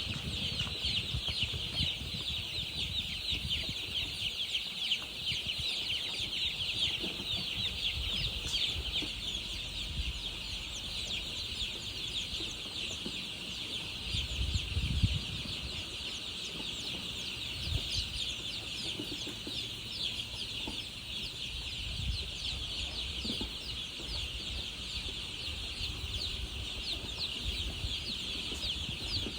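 A crowd of baby chicks cheeping continuously: a dense chorus of many overlapping high peeps, with a few dull knocks underneath.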